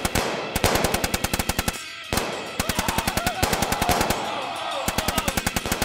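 Gun battle sound effect: rapid automatic gunfire in long bursts, breaking off briefly about two seconds in.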